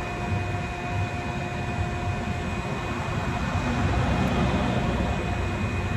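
Steady mechanical hum and rushing noise of machinery running in the shop, with a few constant whining tones over a low rumble.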